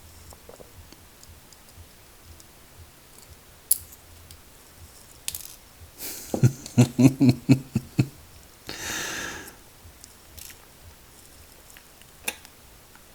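Small clicks and ticks of padlock parts (pins, springs and spools) being handled and lined up with tweezers during reassembly. A run of about eight quick low pulses comes between about six and eight seconds in, followed by a short hiss near nine seconds.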